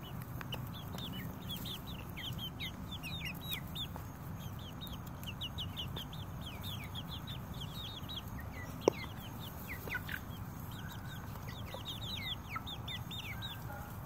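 Six-week-old chicks peeping continually with many short, high, falling chirps as they feed. A single sharp click sounds about nine seconds in.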